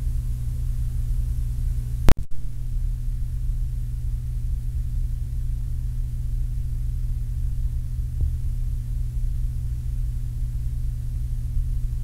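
Steady low electrical hum with faint tape hiss from a cassette transfer between recorded programmes, broken by a single sharp click about two seconds in where side one ends and side two begins. A much fainter tick follows later.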